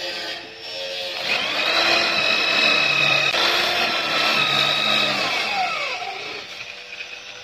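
Electric drill with a twist bit boring a peg hole through a wooden joint. The motor whines up about a second in, runs steadily for about four seconds while drilling, then winds down.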